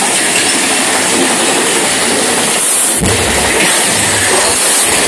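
Roller coaster train running fast along its track: a loud, steady rush of wheel and track noise, with a deeper rumbling that comes in about three seconds in.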